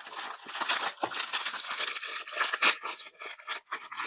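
Blind-box packaging being torn open and crinkled by hand, a run of quick tearing and rustling strokes.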